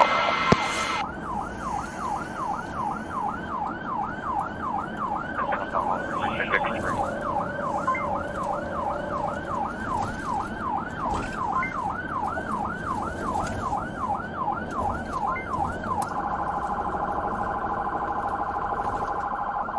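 Police car siren on a fast rising-and-falling yelp, about two and a half sweeps a second. About sixteen seconds in it switches to a much quicker pulsing warble.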